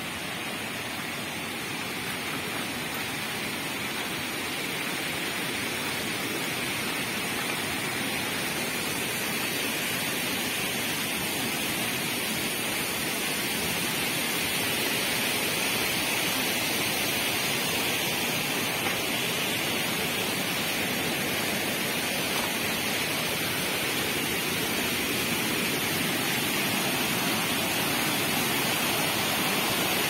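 Rushing water of a rocky stream below a waterfall, a steady rush that grows gradually louder.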